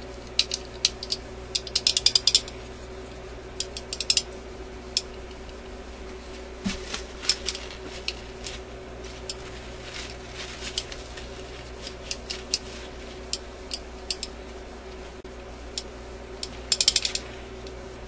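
The end-of-record trip mechanism of an Admiral suitcase record player, a blue plastic gear carrying two small metal pieces, clicking and ticking irregularly as it is worked back and forth by hand. There are quick flurries of clicks about two seconds in and near the end. The two metal pieces are sticking together and are being freed with alcohol.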